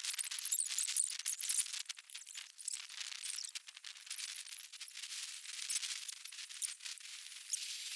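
Seashells clicking and clinking against one another in a rapid, irregular rattle.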